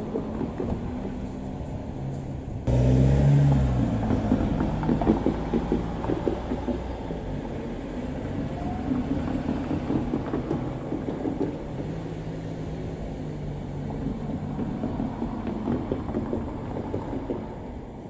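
KiHa 48 diesel railcar running slowly, its diesel engine giving a steady low rumble, with its wheels knocking over rail joints and points; the sound jumps louder about three seconds in and eases off near the end.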